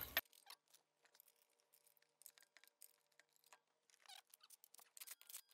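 Near silence with faint, scattered light clicks that come more often near the end.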